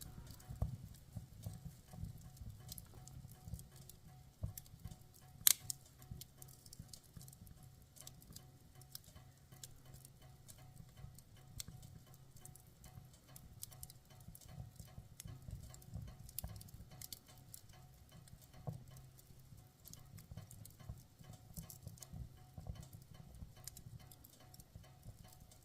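Campfire crackling with irregular snaps and pops, one sharp, loud pop about five seconds in.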